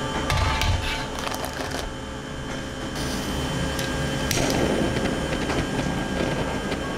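Clatter of an upturned aluminium cake pan set down on a metal baking tray, then a handheld butane torch clicks alight a little over four seconds in and hisses steadily as its flame heats the pan to loosen the baked cheesecake from the mould.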